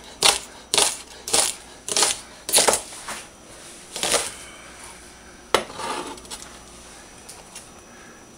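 Chef's knife chopping green onions on a cutting board, sharp chops about two a second, stopping about three seconds in. A few scattered knocks follow as the board and knife are picked up and moved.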